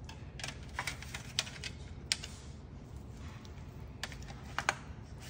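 Irregular light clicks and crinkles of a thin disposable aluminium foil pan as slabs of cookie dough are set down and pressed into it, over a low steady room hum.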